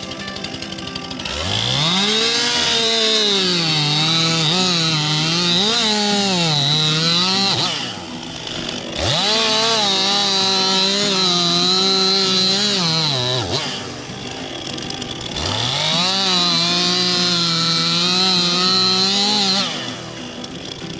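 Stihl MS 261 C two-stroke chainsaw revved up to full throttle three times, each run about four to six seconds, and dropping back to idle in between. Its pitch sags and wavers while the chain is cutting through a log to saw it into rounds.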